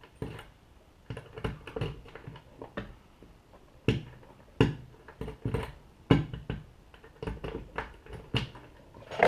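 Fuel-door parts being handled and fitted by hand: a string of irregular sharp clicks and knocks.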